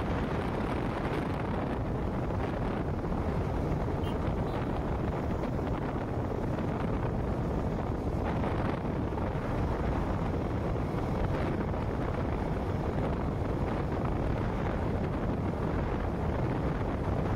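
Motorcycle riding along a highway: steady wind rush over the microphone mixed with engine and road noise.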